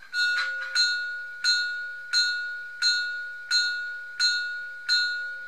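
A bell struck about eight times at an even pace, a little under one and a half strikes a second, each ring dying away before the next: a departure-bell signal sounding as the model steam train starts up.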